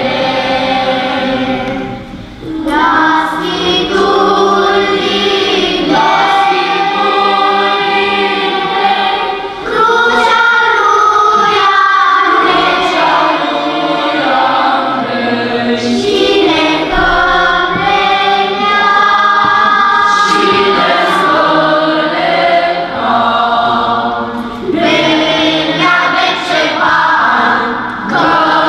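A children's choir singing together, phrase after phrase, with short breaks between phrases.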